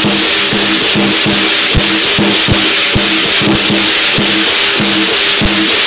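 Lion dance percussion band playing loudly: a big drum struck in quick, irregular beats under continuous crashing cymbals and a ringing gong.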